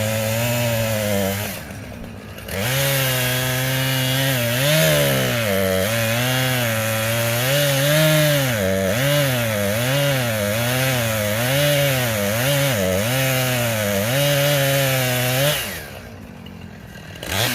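Chainsaw cutting into a poplar tree being felled. The engine note drops briefly about two seconds in, then runs on under load, its pitch rising and falling about once a second, before it eases off near the end.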